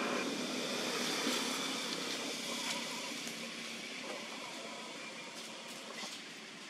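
A steady rush of passing road traffic that is loudest near the start and slowly fades away.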